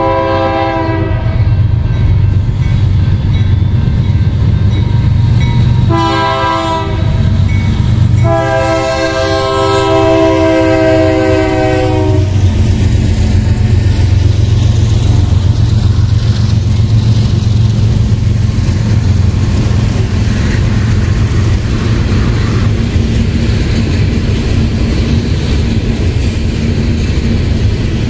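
BNSF freight train's diesel locomotive horn sounding three blasts: a short one at the start, another short one about six seconds in, and a long one of about four seconds from about eight seconds in. Through the horn and after it comes the steady noise of the locomotives and a long string of tank cars rolling past.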